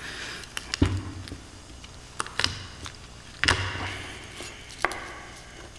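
Chef's knife knocking on a wooden cutting board while mincing garlic: about half a dozen separate sharp knocks, two of them heavier with a dull thud, about one second and three and a half seconds in.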